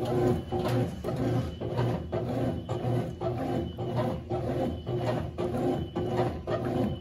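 Consul CWS12 12 kg top-load washing machine running, with a hum that pulses about twice a second. It starts abruptly.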